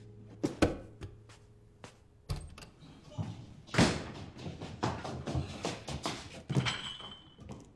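A string of dull thunks and knocks as a large cardboard delivery box is carried and bumped about, with a door shutting about half a second in. The loudest knock comes a little before the middle.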